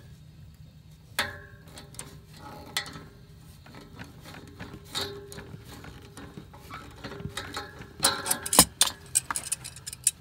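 Water pump pliers clicking and scraping against the brass supply valve of a cast-iron steam radiator as the valve is gripped and turned. The valve has lost its handle. There are irregular metallic clicks, with one louder knock near the end.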